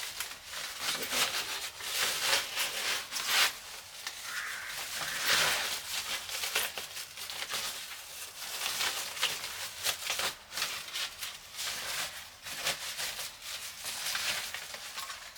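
Irregular rustling and crinkling of packaging, with many small scrapes and knocks, as monitor parts are unpacked and handled.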